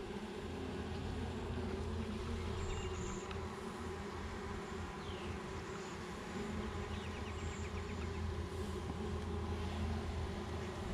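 Honeybees from a young package colony buzzing steadily around the opened hive.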